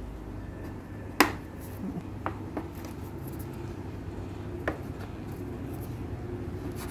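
A large kitchen knife cutting through pizza dough and knocking on a marble countertop: one sharp knock about a second in, then a few fainter taps.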